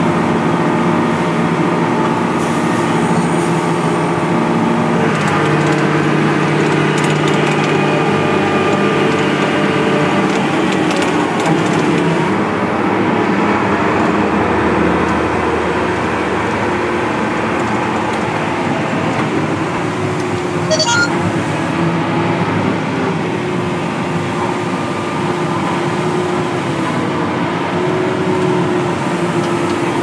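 Steady engine drone and rattling of heavy harvest machinery: a tractor and grain cart augering corn, then a combine harvesting and unloading corn. The hum changes pitch a few times.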